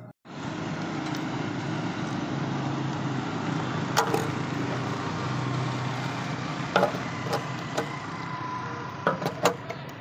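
Steady road-traffic and engine noise, with a few sharp metal clicks from a motorcycle's locking fuel-tank cap and its key being opened and shut.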